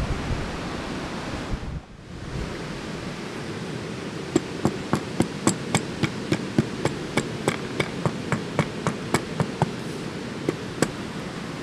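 An aluminium-bodied LED off-road light is knocked again and again against sand-covered concrete in a shock test: sharp, even knocks, about three a second, starting about four seconds in. A steady rushing noise runs underneath.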